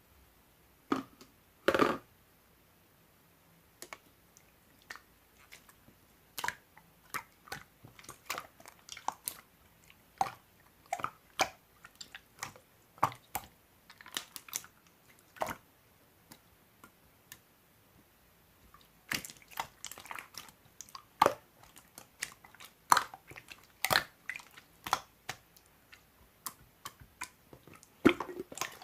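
Slime being squeezed and worked by hand: irregular wet squishes with small pops and clicks, thinning out for a few seconds past the middle, then coming thicker toward the end.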